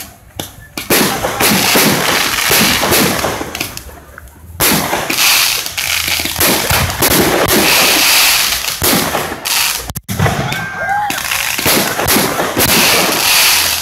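Fireworks going off in quick succession: a rapid run of bangs and crackling pops, with a short lull about four seconds in before a long, dense barrage.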